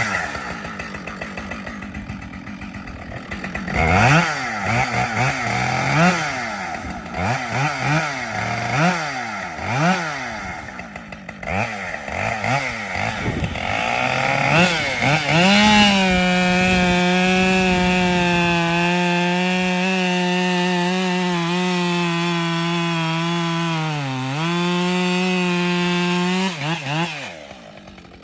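Husqvarna 572 XP two-stroke chainsaw, warmed up, revved up and down in a string of throttle blips. About halfway through it goes to full throttle and holds a steady high pitch while cutting almond wood, dips briefly under load near the end, then drops off the throttle.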